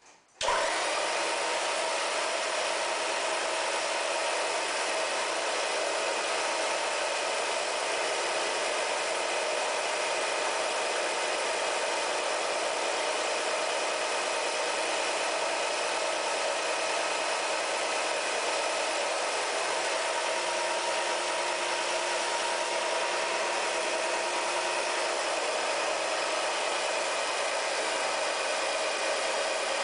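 Schumann resonance generator platform switching on about half a second in, then running with a steady, even buzz full of high overtones and no deep bass.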